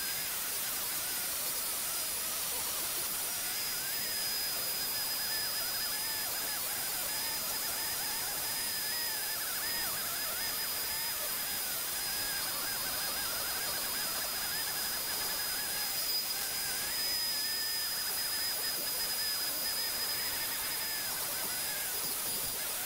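Dremel rotary tool on a flex shaft running with a steady high-pitched whine while a fine diamond burr grinds detail into a small piece of pine; a second, lower whine wavers up and down as the bit bears on the wood.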